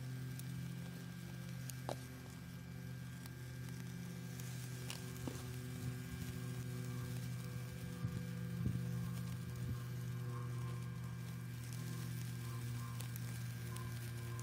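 Steady hum of the mini wood stove's USB blower fan, run from a power bank and forcing air into the fire, with a few sharp crackles from the burning wood.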